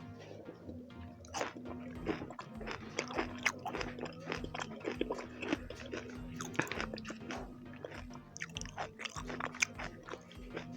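Close-miked eating: a person chewing and biting food, a quick irregular run of short sharp mouth clicks.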